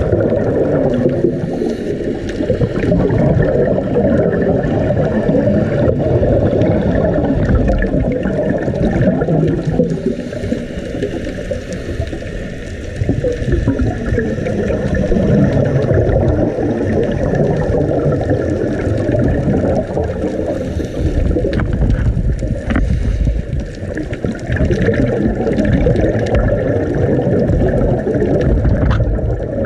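Underwater recording of rough seas: a continuous, muffled rumbling and gurgling of surging water, swelling and easing, with a few sharp clicks near the end.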